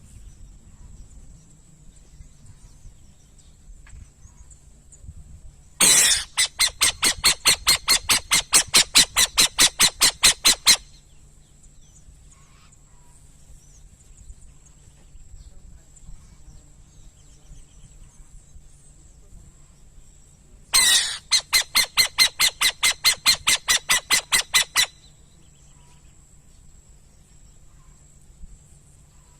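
Burrowing owl giving two bouts of rapid, harsh, evenly repeated chattering notes, about five a second, the first lasting about five seconds and the second, about fifteen seconds later, about four seconds.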